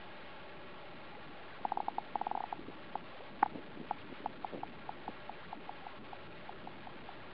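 A run of short, pitched clicks, bunched at first and then about five a second, growing fainter, over a steady hiss.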